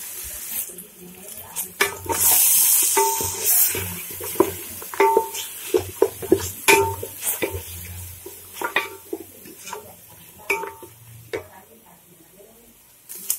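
Wooden spatula stirring and scraping a ginger-garlic, chilli and mint paste with fried onions in an aluminium pot, knocking against the pot's side many times, some knocks leaving a short metallic ring. About two seconds in the pan sizzles loudly for a second or so as the paste hits the hot oil; this is the sauté that cooks off the paste's raw smell. The knocks thin out and grow quieter near the end.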